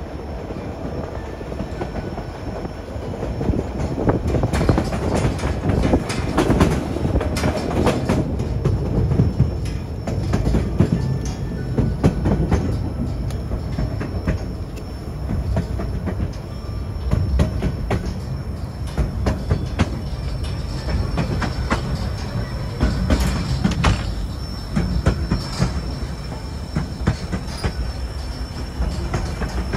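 Narrow-gauge train cars rolling along the track: a steady low rumble with irregular clicks of the wheels over rail joints, and a thin, high wheel squeal that grows stronger in the second half.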